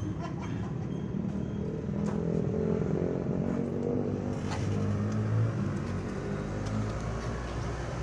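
Motor vehicle engine running nearby, a low steady rumble that grows louder about halfway through.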